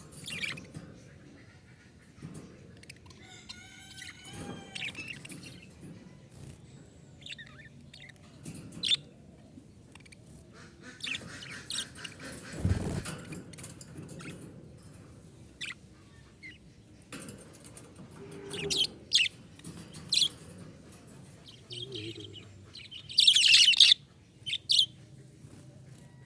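Small pet parrots chirping and calling in short, scattered bursts, with a warbling run of notes about three to five seconds in. The loudest is a shrill burst of calls near the end.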